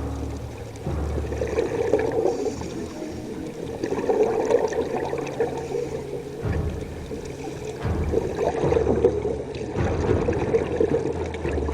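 Muffled water sloshing and gurgling, rising and easing every few seconds.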